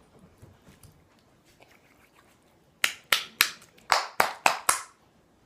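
Seven sharp slaps in quick succession, three and then after a short pause four more, each ringing off briefly.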